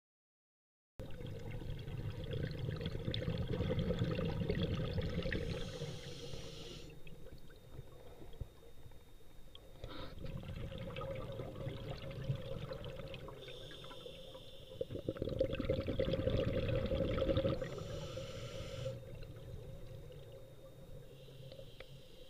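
A scuba diver breathing underwater: long bursts of rushing, bubbling exhaust alternating with shorter hissing breaths through the regulator, about three breath cycles, starting about a second in. A faint steady whine from the camera runs underneath.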